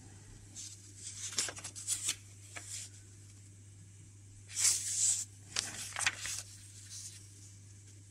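Thin paper instruction sheets rustling and crinkling as they are handled and turned over, in several short bursts, the loudest about four and a half seconds in. A faint steady low hum runs underneath.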